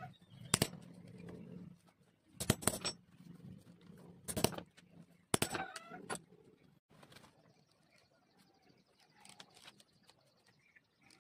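Metal hammer tapping cowhide leather laid on a wooden block: several sharp knocks, some close together in pairs, over the first half, then it stops.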